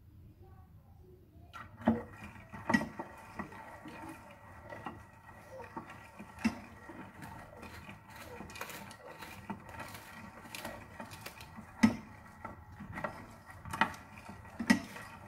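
A wooden spoon stirring black beans in soy sauce and water in an enamel pot, with irregular knocks of the spoon against the pot. A faint steady hum starts about two seconds in and runs under the stirring.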